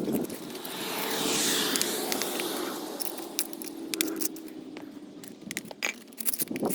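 Hand tool scraping out old loose mortar pointing between paving slabs, with scattered sharp clicks and scrapes of grit. A broad hiss swells up and fades away in the first few seconds.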